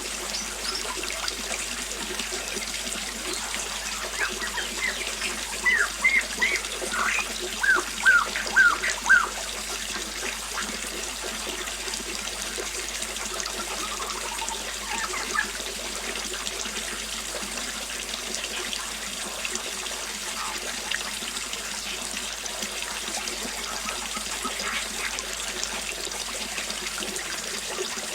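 Small waterfall splashing steadily, with birds chirping over it: a run of loud, quick chirps between about five and nine seconds in, then scattered fainter calls.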